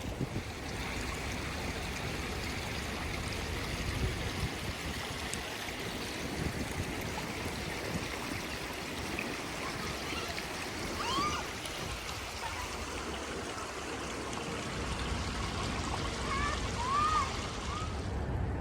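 Steady rushing of running water, like a fountain or cascade, with a few faint, short, high chirps about ten seconds in and again near the end. The rushing drops away just before the end.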